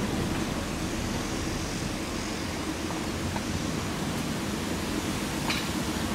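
Steady outdoor background rumble with no distinct event, and a faint click about five and a half seconds in.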